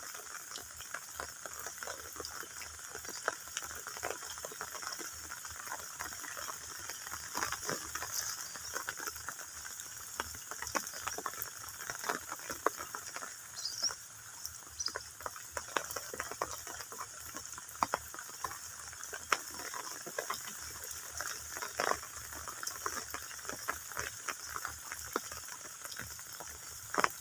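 Shallow running water trickling and bubbling, with a dense stream of irregular small splashes and crackles over a steady hiss.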